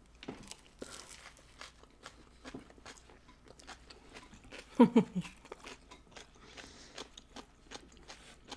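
Close-miked chewing of a sloppy joe and crunchy coleslaw, with small crunches and wet mouth clicks throughout. About halfway through comes a short sound that falls in pitch, the loudest moment.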